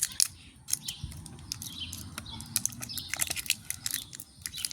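Plastic battery blister pack being bent and broken open by hand: a run of sharp, irregular clicks and crackles. Birds chirp in the background.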